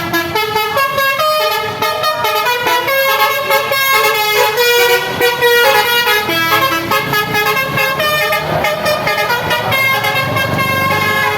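A bus's basuri musical air horn playing a quick tune of short stepping notes.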